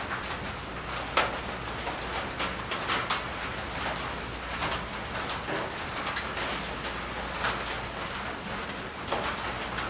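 Scattered light clicks and taps from metal engine parts being handled on the crankshaft and connecting rods in a VW engine case, over a steady hiss. The sharpest click comes about a second in.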